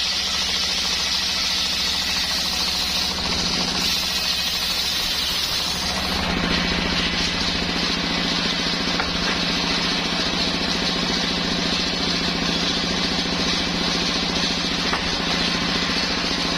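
Engine of a homemade circular sawmill running steadily, its sound changing in character about six seconds in.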